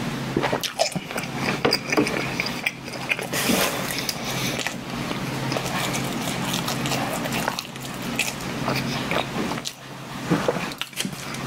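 Close-miked chewing and wet mouth sounds of a person eating chestnut bread, with irregular small clicks, over a steady low hum.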